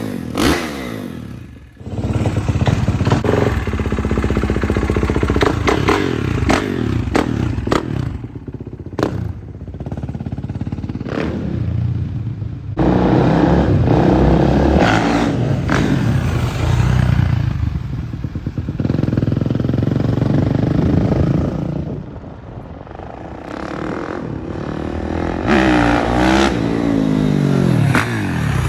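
Kawasaki KX450 dirt bike's single-cylinder four-stroke engine revving up and down as the bike is ridden around, growing louder and fading away as it comes and goes.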